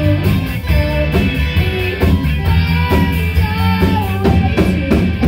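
Live pop-punk band playing: electric guitars and a drum kit driving a steady beat, with a singer's melody over them.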